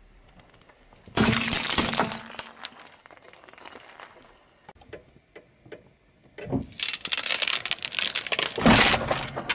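A car tyre rolls over small coloured light bulbs and crushes them: a loud crunch of breaking bulbs about a second in, trailing off into scattered crackles. Near the end the tyre bears down on a block of stacked glass sheets, which cracks and crackles loudly under the weight.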